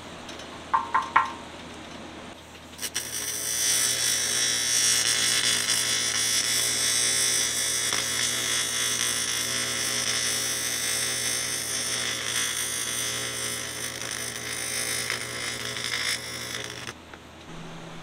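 TIG welding arc on aluminum: a steady buzzing hiss that starts with a click about three seconds in and cuts off abruptly near the end, as a cover pass is laid over a filled hole in an aluminum tank. A few short chirps sound about a second in, before the arc starts.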